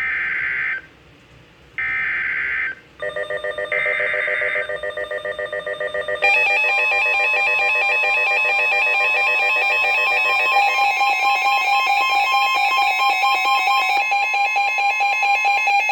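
NOAA Weather Radio emergency alert: three short bursts of screechy digital SAME header data, then a steady electronic alert tone from about three seconds in that turns louder and pulsing about six seconds in. The header and tone announce a severe thunderstorm warning.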